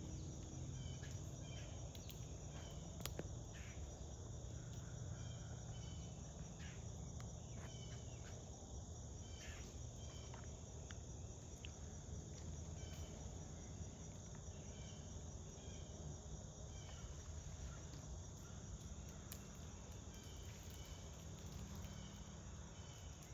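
Insects chirring steadily in a continuous high, evenly repeating pattern over a low outdoor hum, with a few faint clicks.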